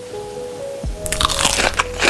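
Background music with held notes; about a second in, crunchy chewing of food starts over it, close to the microphone.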